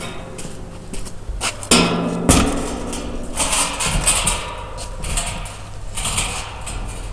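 Irregular knocks and taps with short scuffing noises over a steady low hum.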